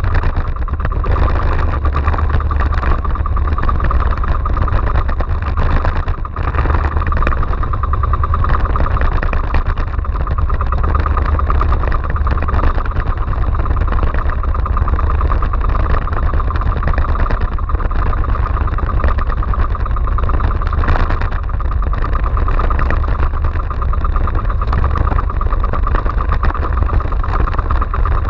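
Engine of a motorized outrigger fishing boat (bangka) running steadily under way, over wind and water noise from rough sea.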